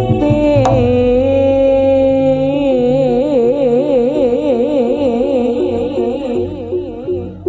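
Javanese gamelan music for a jaranan dance: a long held melodic note with a wide, wavering vibrato, sung or played on a reed pipe, over low drums. The note fades near the end.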